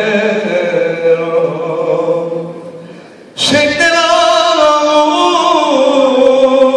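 A man singing an Armenian song solo and unaccompanied, in long held phrases. The first phrase fades out about two and a half seconds in. The next comes in strongly about a second later and its melody slowly steps downward.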